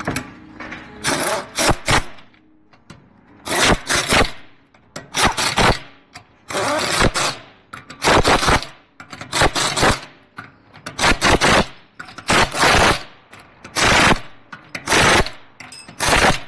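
A power tool or air tool running in about a dozen short bursts, each under a second, roughly one a second.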